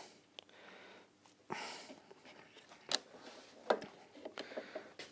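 Faint handling noises at the workbench: a short rustle about one and a half seconds in, then a few light clicks and knocks as the clamped wooden workpiece is handled.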